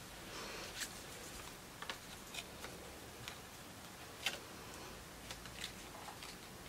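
Paper and felt die-cut embellishments being handled and laid on a scrapbook page: soft paper rustling and a scatter of small sharp taps and clicks, the sharpest about four seconds in.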